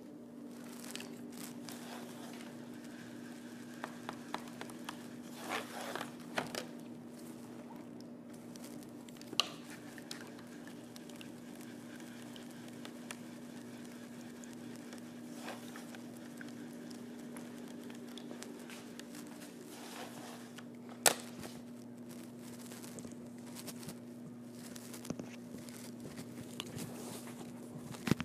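Paintbrush scrubbing and rustling against a painted stage backdrop, in irregular strokes, with a few sharp clicks and a steady low hum underneath.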